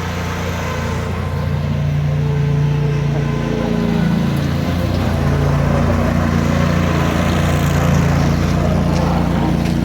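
An engine running steadily, a low hum that holds through without stopping.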